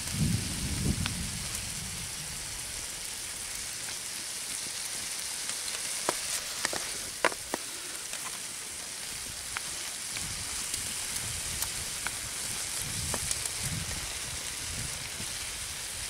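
Minced meat, cherry tomatoes and vegetables sizzling steadily in a frying pan over a wood fire, with scattered sharp pops.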